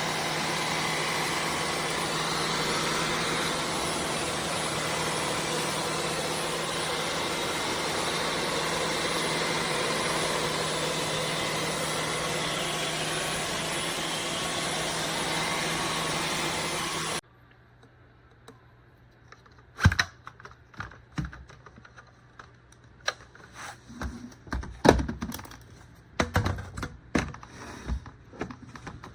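Dyson V15 Detect Plus cordless stick vacuum running steadily with a constant motor whine, cutting off suddenly after about seventeen seconds. Scattered light clicks and knocks follow.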